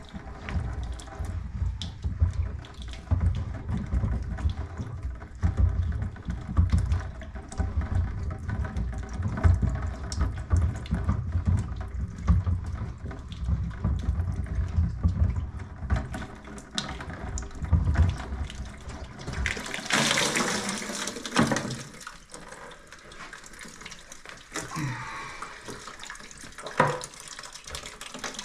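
Water sloshing and running from the sediment housing of a whole-house well-water filter as it is unscrewed and drained into a bucket, with a louder rush of pouring water about twenty seconds in and a knock near the end.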